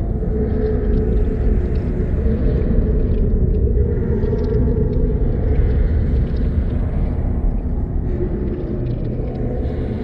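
Paranormal horror ambience sound effect: a steady, dense low rumble with droning held tones over it and faint scattered ticks.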